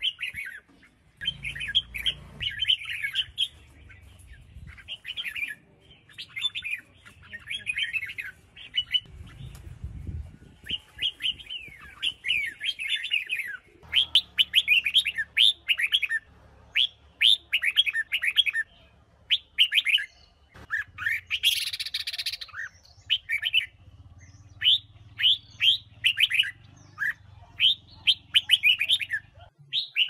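Red-whiskered bulbul song: quick, chattering runs of short, sharply pitched whistled notes, phrase after phrase with brief pauses, and one harsher, noisier call a little past two-thirds of the way in.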